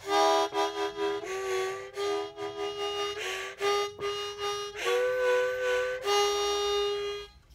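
A small 10-hole harmonica played in a string of held chords, several reedy notes at once, shifting every second or so and stopping just before the end.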